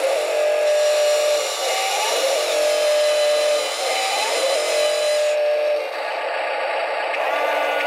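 Huina RC wheel loader running as its lift arm raises the bucket: a mechanical whine that swells and holds in a repeating cycle about every two seconds, over a hiss. It stops about six seconds in.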